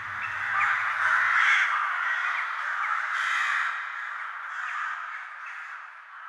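A flock of crows cawing, many calls overlapping into a dense clamour that slowly fades.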